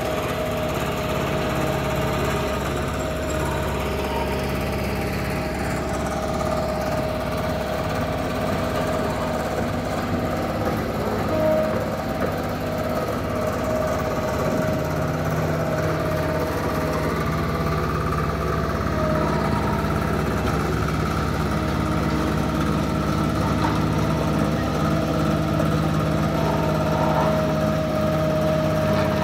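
A small motor running steadily, a constant engine-like drone with a steady whine over it.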